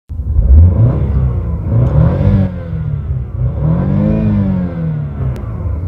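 An engine revving several times, its pitch rising and falling with each rev, the longest rev about four seconds in.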